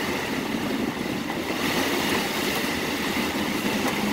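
Heavy rain beating on a moving car's roof and windshield, with tyres hissing on the soaked road, heard from inside the cabin as a steady, unbroken noise.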